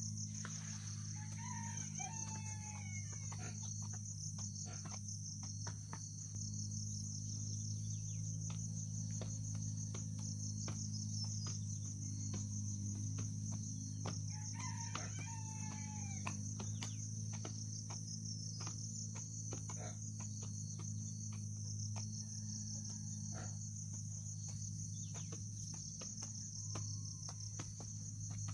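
A rooster crows twice, about a second in and again about halfway through, over a steady pulsing trill of insects. Scattered sharp knocks and a steady low hum run underneath.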